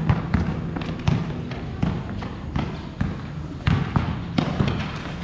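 A basketball being dribbled on a concrete court: a string of short bounces, two or three a second and unevenly spaced.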